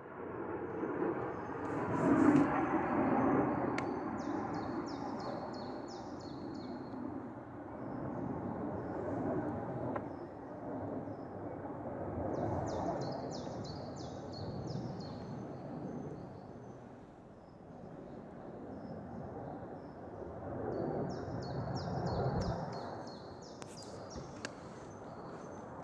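Outdoor ambience: a low, wavering noise that swells and fades, with a bird's quick, high chirping phrase heard three times.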